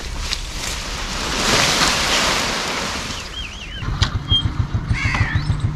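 Wind rushing over the microphone. From about four seconds in, a motorcycle engine starts running with a low, fast, even pulse. Short bird calls sound over it, with a crow cawing near the end.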